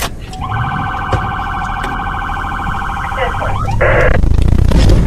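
Police cruiser siren switched on, sounding a rapid warbling wail for about three seconds, then a short harsher blast. Near the end the cruiser's engine picks up as it accelerates after the fleeing pickup.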